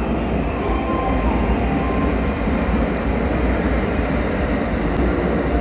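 JR West 521 series electric multiple unit running past along the platform track: a steady rumble of wheels on rails.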